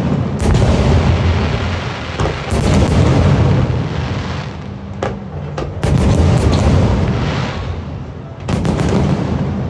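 Aerial fireworks shells bursting: four loud booms a couple of seconds apart, each trailing off in a long rumble, with a few smaller sharp cracks in between.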